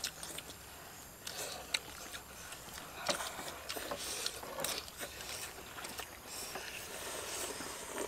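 Several people eating noodle soup: irregular slurping of noodles, with short sharp clicks of chopsticks against ceramic bowls.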